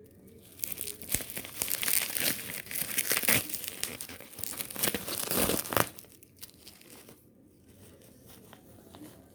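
Packaging crinkling and rustling as it is handled, dense and busy for about the first six seconds, then only a few faint light rustles.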